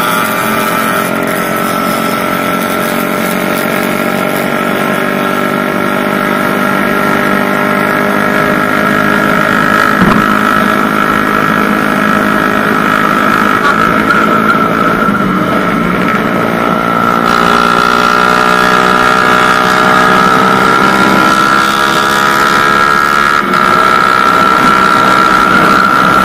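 Suzuki Satria FU 150's single-cylinder four-stroke engine running hard at high revs as the motorcycle speeds up, its pitch gliding up and down in places, with a steady high whine over it.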